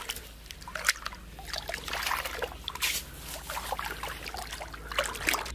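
A hand swishing and splashing in shallow muddy water, with irregular small splashes and trickling.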